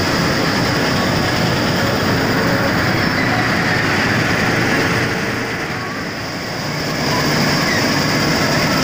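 New Hira 985 combine harvester running close by as it cuts wheat: a loud, steady mechanical noise of engine and threshing machinery, easing off briefly a little past the middle.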